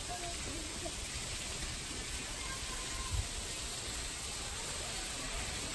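Steady outdoor hiss, even and unbroken, with one short low thump about three seconds in.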